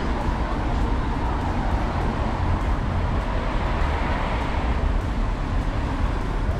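Steady road traffic: cars and a van driving past on a wet road, a continuous rumble with tyre noise.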